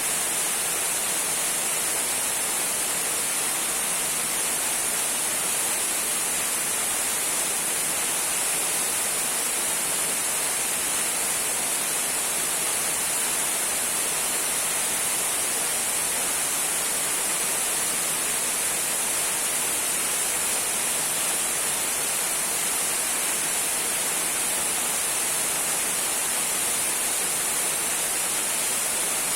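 Small waterfall trickling: a steady, unbroken rush of water, hissy and bright, with little deep rumble.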